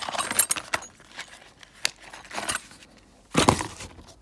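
Small metal hand tools (a spark plug wrench and a screwdriver) clink inside a tool pouch as it is handled and shut. The pouch rustles with a few sharp clicks. About three and a half seconds in, a louder cardboard scrape is heard as it goes into the box.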